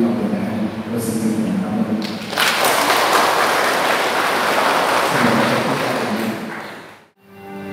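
A church congregation applauding, a dense clapping that starts about two and a half seconds in and fades out near the end.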